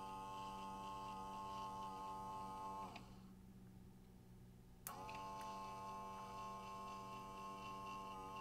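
Small electric gear motor of a 3D-printed buoy dropper running with a steady whine as it turns its cam disc. About 3 s in it winds down and stops, then starts again abruptly with a click about 5 s in, when the push button is pressed to begin another turn.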